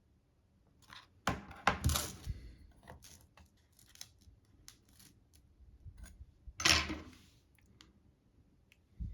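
Light clicks, taps and scrapes of small tools and parts being handled on a hard surface, with a burst of knocks about a second and a half in and one sharper knock about seven seconds in.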